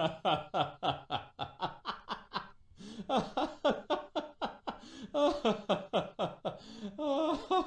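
A comedy laughter sound effect: a person laughing in quick, rhythmic ha-ha-ha bursts, in three runs with brief pauses between them.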